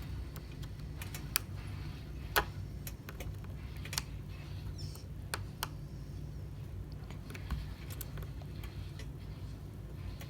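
Irregular light clicks and taps of a precision screwdriver and small screws against an iPhone XR's metal brackets during disassembly, over a steady low hum.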